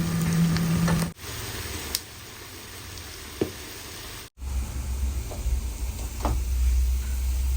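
Chicken fry sizzling in a kadai, with a few light knocks of a utensil against the pan. The sound changes abruptly twice, about a second in and again past the middle.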